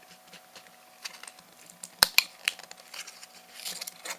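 Scattered sharp clicks and light rustling from hands working a disassembled laptop battery pack, its plastic casing and lithium-ion cells. A single sharp click about two seconds in is the loudest.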